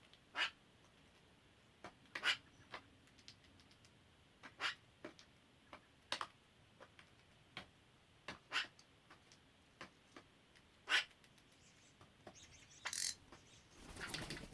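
Wild birds calling with short, sharp chirps, one at a time at irregular intervals, with a brief rustling burst near the end.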